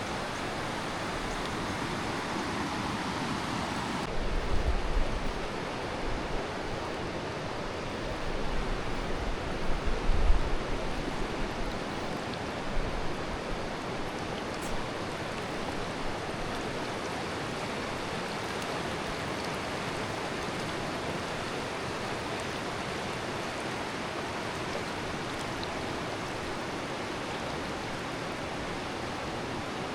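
Creek in full flood, floodwater rushing in a steady, even roar of noise. A few low bumps on the microphone come between about four and eleven seconds in.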